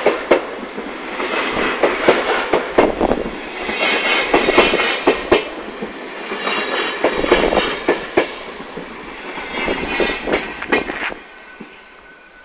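NS VIRM double-deck electric train running past close by, its wheels clattering over the rail joints car after car. The noise drops away sharply about 11 seconds in as the last car clears.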